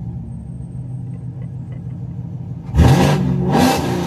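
Camaro V8 with catless long-tube headers, an X-pipe and an AWE Track Edition axle-back exhaust, idling with a deep rumble, then a sharp throttle blip near the end that revs up twice in quick succession and falls back toward idle, loud inside the cabin.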